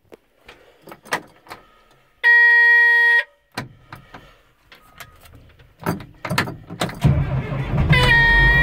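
Cat 525 log skidder's diesel engine being started: a few clicks in the cab, then a warning buzzer sounds for about a second. The engine cranks with a low uneven rumble, catches about seven seconds in and runs steadily, with a second short buzzer tone near the end.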